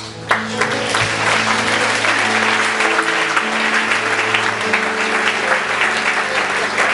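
Congregation applauding: many hands clapping, starting sharply just after the start, over music with long held chords.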